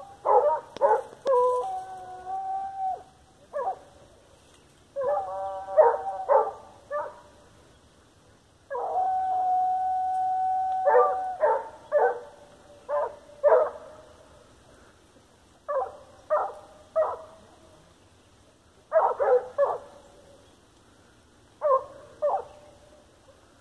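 Hunting dog baying while on the trail of a paca: groups of short barks mixed with drawn-out howls, one long held howl about nine seconds in.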